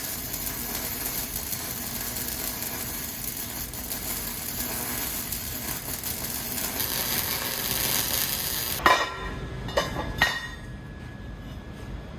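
Steady crackling sizzle of an arc welder laying a bead for about nine seconds, then it cuts off abruptly and a few plucked banjo-like notes of music begin.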